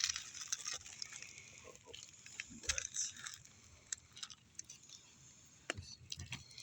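Asphalt roof shingles being lifted to reach the nails beneath: scattered scraping and crackling with sharp clicks.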